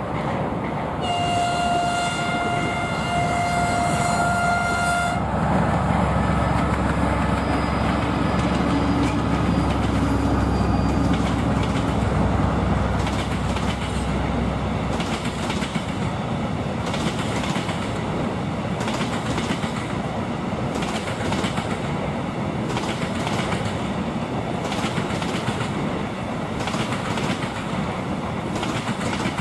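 ČSD class T679.1 'Sergej' (Soviet M62-family) diesel locomotive sounding its horn in a single-pitched blast of about four seconds with a short break near the middle, then the low drone of its twelve-cylinder two-stroke diesel swelling as it passes. After that a long train of empty flat wagons clatters over the rail joints with about one knock a second.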